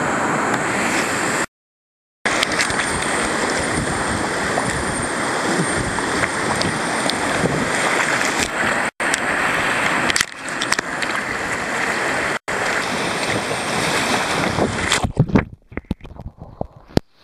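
Loud rushing and splashing of whitewater river rapids close to the microphone as it rides through the water. The sound cuts out completely for under a second about a second and a half in, and breaks up into choppy, uneven splashes near the end.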